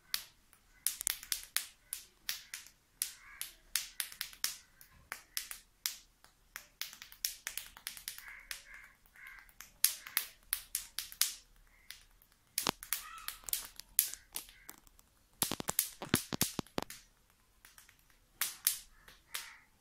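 Finger snaps and clicks played fast in drum-like runs with short breaks, imitating a tasha drum's rhythm by hand alone. The densest, loudest run comes about three-quarters of the way through.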